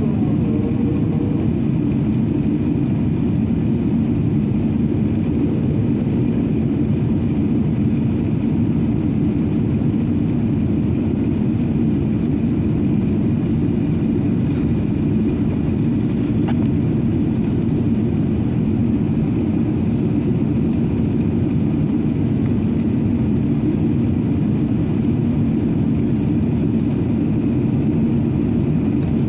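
Steady low roar of an Airbus A380-800's engines and rushing air, heard from inside the passenger cabin.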